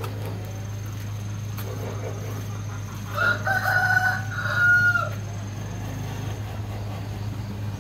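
A rooster crowing once, a call of about two seconds starting about three seconds in, over a steady low hum.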